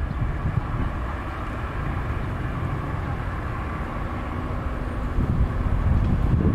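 Jet airliner in flight high overhead, its engines heard as a steady, distant low rumble.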